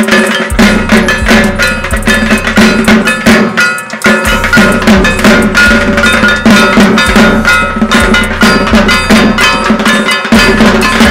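Several dhak drums beaten fast with sticks in a dense, loud rhythm, with a bright metallic clanging ringing over them; the low drum strokes drop out briefly about four seconds in.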